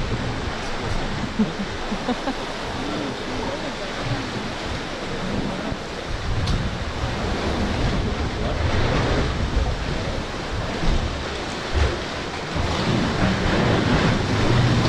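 Sea waves washing and sloshing against rock cliffs, with wind rumbling on the microphone. The sound grows a little louder in the last couple of seconds.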